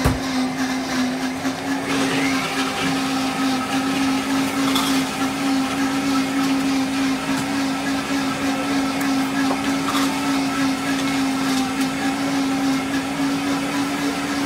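A small electric motor running steadily with an even, single-pitched hum.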